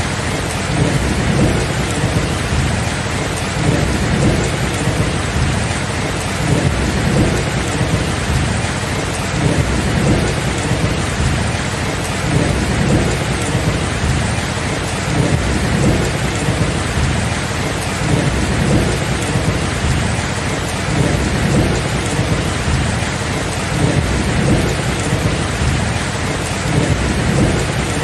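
Steady heavy rain falling, with low rolling thunder rumbling and swelling every second or two and no sharp cracks.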